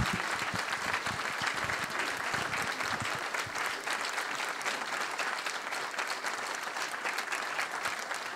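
Audience applauding in a hall: steady, dense clapping from a crowd.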